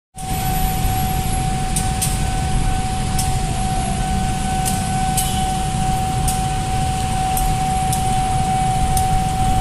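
Low rumble of queued motorcycles and auto-rickshaws idling at a closed railway level crossing, with the crossing's warning alarm sounding as one steady high tone throughout. A few faint clicks are scattered through it.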